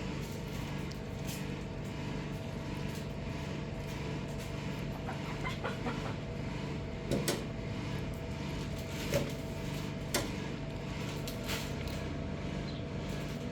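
Steady mechanical hum, with a handful of short clicks and light knocks in the second half.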